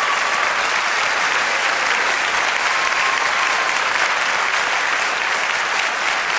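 Crowd applauding, a steady dense clapping that holds level and then cuts off abruptly.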